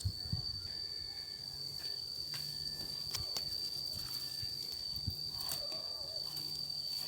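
Insect, cricket-like, making a steady, unbroken high-pitched trill, with a few faint clicks and rustles beneath it.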